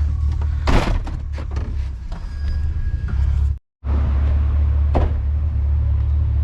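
Truck engine idling with a steady low rumble. A door shuts about a second in, a few lighter clicks follow, and there is another knock about five seconds in. The sound cuts out completely for a moment midway.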